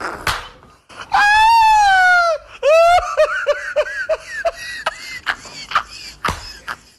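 Raccoon giving one long high-pitched squeal that falls slightly, then a quick run of short falling chirps, with sharp clicks scattered through.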